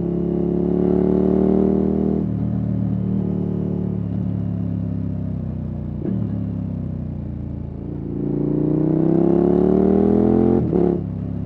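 KTM 1290 Super Adventure S V-twin engine through an aftermarket Wings exhaust, pulling hard under throttle. The pitch rises for about two seconds, drops back and runs steady, then climbs again in a longer, louder rise that ends in a sharp snap as the revs fall near the end.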